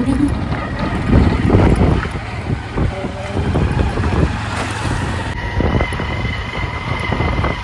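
Wind buffeting the microphone on a moving two-wheeler, with gusty low rumble from the wind and road noise.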